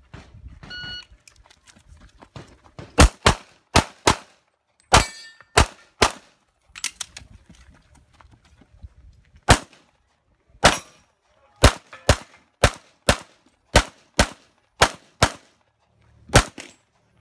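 A shot timer beeps about a second in. About two seconds later a Limited-division pistol starts firing a string of roughly twenty shots, many in quick pairs, with pauses between bursts as the shooter moves through a practical-shooting stage.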